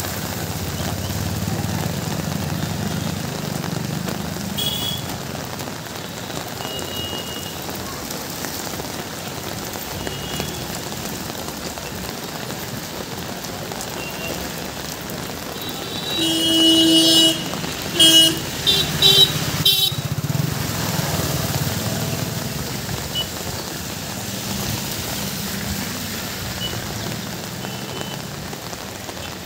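Steady rain falling on a wet street with traffic passing. About halfway through, a vehicle horn gives one long blast followed by several short toots.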